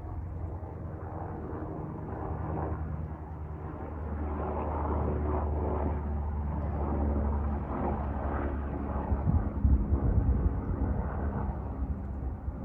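An aircraft flying over: a low rumble that swells through the middle and eases off near the end.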